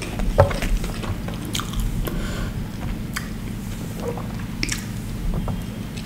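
Close-miked chewing of soft deep-fried bhatura bread and chickpea curry, with scattered wet mouth clicks and smacks over a faint steady low hum.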